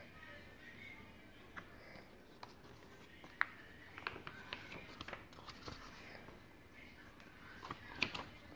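Soft paper handling of a paperback book as its pages are turned: scattered light clicks and rustles of the pages and cover, the sharpest about three and a half seconds in, with a busier stretch of rustling in the middle and another near the end.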